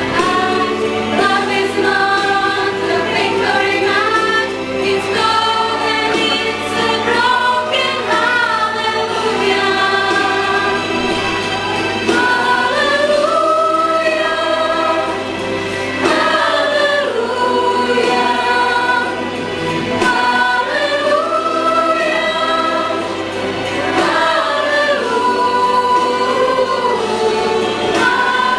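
A girls' choir singing a melody together, with long held notes.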